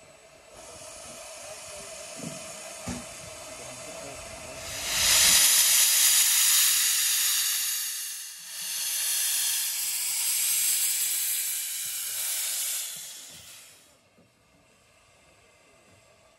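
Steam locomotive Northern Chief, a 15-inch gauge engine of the Romney, Hythe and Dymchurch Railway, venting steam with a loud hiss. The hiss grows much louder about five seconds in, dips for a moment, then cuts off sharply near the end.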